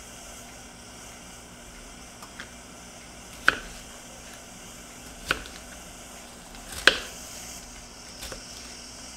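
Chef's knife cutting a green bell pepper on a plastic cutting board: a few light taps, then three sharp knocks of the blade against the board spaced about a second and a half apart, and a couple of light taps near the end.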